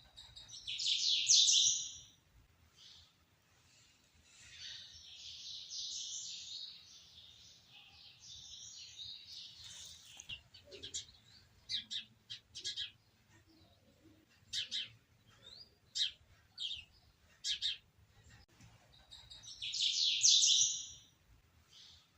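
Newborn pigeon squabs peeping shrilly. There are two loud bursts of rapid high peeping, one near the start and one near the end, with softer chirping and a string of short sharp cheeps between them.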